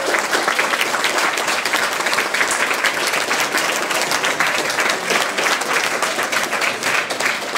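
A small group of people applauding, a steady patter of hand claps.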